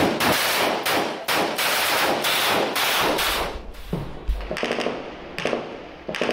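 Gunfire in close combat: a rapid string of rifle shots, about four a second, for roughly three seconds, then a few spaced single shots. A deep thud comes about four seconds in.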